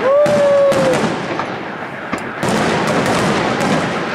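Fireworks display: aerial shells bursting in quick succession, with loud bangs and crackling. A short held tone is heard in the first second, and the bangs ease off briefly before picking up again about halfway through.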